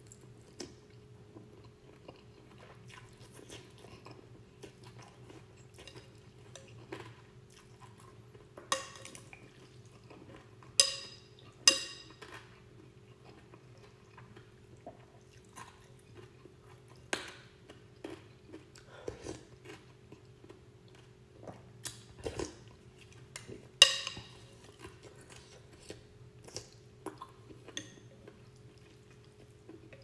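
Someone eating a bowl of instant noodles in soup: soft chewing, with a metal spoon and wooden chopsticks clinking against the ceramic bowl, a few of the clinks sharp and ringing, loudest about a third of the way in and again later. A steady low hum runs underneath.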